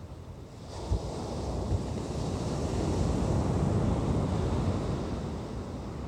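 Ocean surf on a beach: a wave's wash swells in about a second in, peaks and fades. Under it is a steady low rumble of wind on the microphone, with two short wind thumps.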